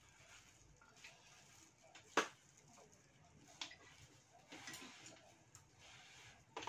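Quiet eating sounds at a meal of fried mantis shrimp: a few sharp clicks, the loudest about two seconds in, with soft crunching and rustling between them.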